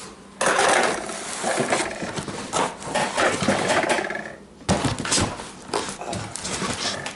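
Cardboard box and paper packaging being handled and opened: a dense stretch of rustling and scraping, then a run of sharper knocks and rustles.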